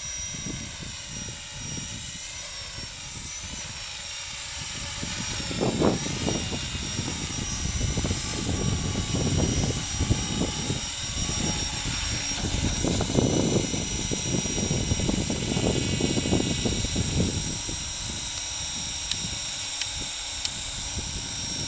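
Thunder Tiger Innovator MD-530 radio-controlled model helicopter flying: a steady high whine from its motor and rotors, shifting up and down in pitch as it moves about. Heavy low buffeting rumble through the middle, and the model sets down near the end with its rotor still spinning.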